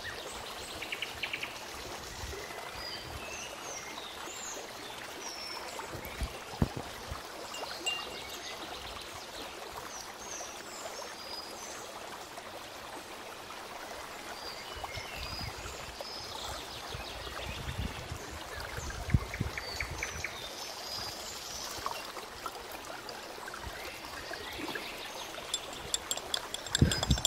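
Garden ambience: a steady water-like rush with songbirds chirping throughout and a few light knocks. Near the end comes a quick run of clinks from a small spoon stirring in a glass.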